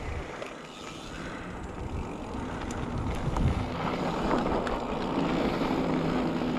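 Mountain bike rolling down a dirt trail: tyre rumble and rattle with wind rushing over the microphone, getting louder as the bike picks up speed.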